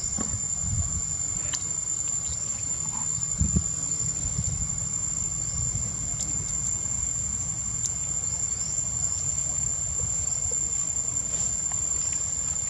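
Insects singing a steady high-pitched drone, with a low rumble underneath and a brief thump about three and a half seconds in.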